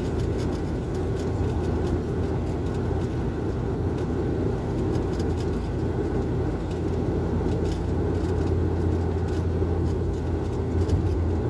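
Steady low drone of an airliner's engines and rushing airflow, heard inside the passenger cabin during the descent to landing.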